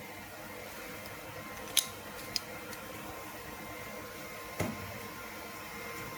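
Steady hum and hiss of a fiber laser welding machine running with its compressed-air supply, broken by two sharp clicks about two seconds in and a duller knock near the end.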